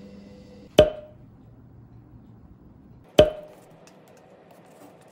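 Two sharp knocks, each with a short ring, about a second in and again some two and a half seconds later, with background music ending at the first. After the second knock there are faint light clicks, like wooden chopsticks stirring in a paper cup of instant noodles.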